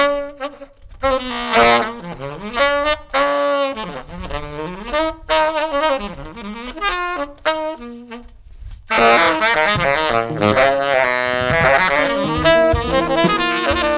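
Tenor saxophone improvising bending, broken jazz phrases with short gaps. About nine seconds in the trio of saxophone, baritone electric guitar and drums turns suddenly louder and denser, with held tones and drum and cymbal hits.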